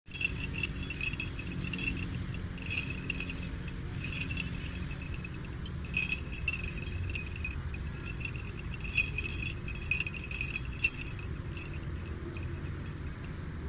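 Sheep bell clinking irregularly with a high metallic ring, the strikes coming every fraction of a second to a second and dying away about eleven seconds in. A steady low background noise sits beneath.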